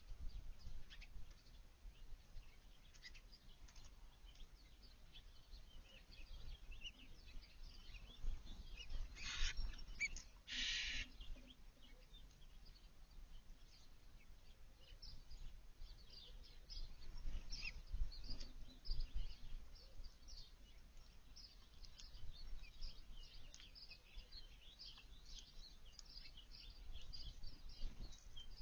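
Small backyard songbirds chirping in short, high calls, more often in the second half. Two brief noisy rushes come about nine and ten seconds in, over a constant low background rumble.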